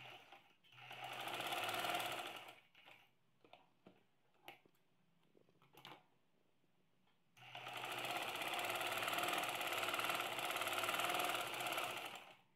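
Sewing machine running as it stitches a seam along a fabric strip: a short run about a second in, a few faint handling clicks, then a longer steady run of about five seconds that stops just before the end.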